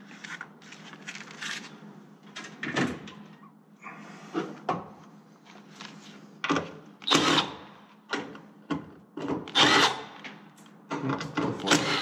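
Cordless drill-driver run in a series of short bursts, backing out screws from a sheet-metal panel, with a steady low hum underneath.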